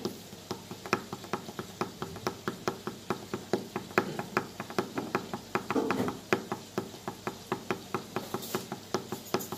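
Fingertips tapping a miniature drum Christmas ornament in a quick, even beat. The taps are light and sharp, about four a second.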